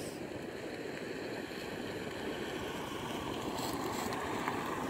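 Sea waves breaking on a beach: a steady rushing wash of surf that slowly swells in level, with some wind on the microphone.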